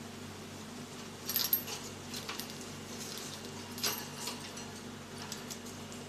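Rainbow lorikeet moving about its wire cage, with a few light clicks and rattles of beak and feet on the metal bars: a cluster a little over a second in, more near two and four seconds. A steady low hum runs underneath.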